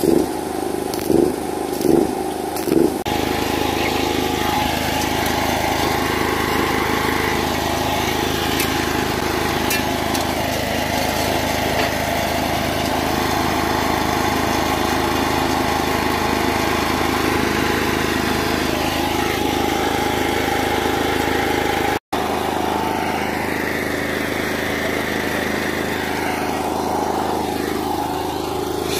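A steady engine-like mechanical drone, with faint voices under it. It drops out for an instant about 22 seconds in.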